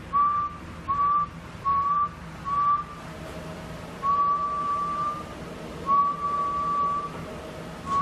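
A person whistling at a steady pitch, four short notes then two longer held ones, each sliding up slightly at the start. The whistle is the test signal into the transceiver's microphone that drives the transmitter and amplifier in AM.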